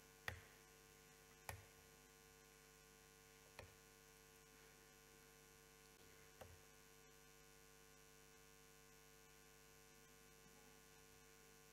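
Near silence: a steady low electrical hum, with four short clicks in the first seven seconds, the first the loudest.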